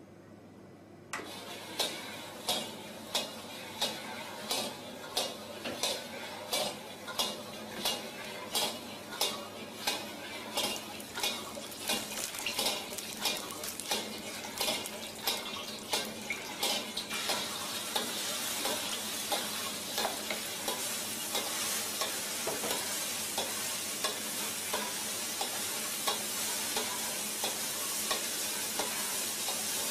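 Automatic stir-fry machine's rotating metal wok scraping against its fixed stirring paddle in a regular rhythm, about three strokes every two seconds. Just over halfway through, a steady sizzle of egg and rice frying in oil joins in, with the scraping continuing more faintly beneath it.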